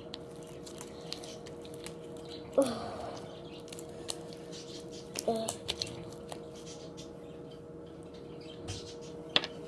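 Sticky glue slime being kneaded and stretched by hand, giving many small wet clicks and three louder short squelches, about two and a half seconds in, about five seconds in and near the end. A steady hum runs underneath.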